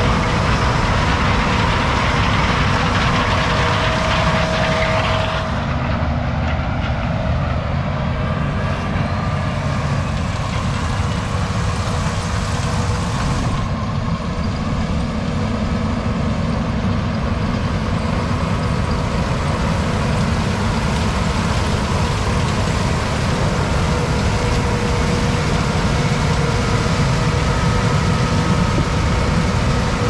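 Heavy diesel harvest machinery running: a steady low engine drone with faint steady whining tones above it. The sound shifts abruptly about five and a half seconds in and again about fourteen seconds in.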